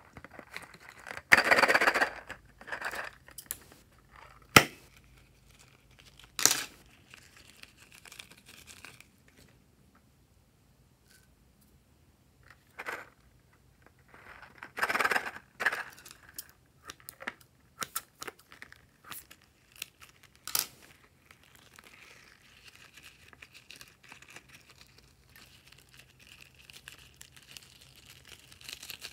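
Hands handling and tearing open a red polka-dot filled toy: several short bursts of tearing and crinkling, a couple of sharp clicks, and a faint rustle near the end as small star sprinkles come out.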